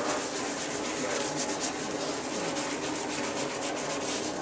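A wet scrub sponge in a gloved hand rubbed briskly back and forth over the skin of a small foot, in quick repeated strokes. This is the surgical scrub stage of pre-operative skin prep, worked over the incision site.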